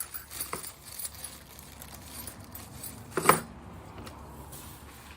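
Small metal clicks and clinks as a drill bit is handled and fitted into a quick-connect adapter on a cordless impact wrench, with one sharper, ringing click about three seconds in.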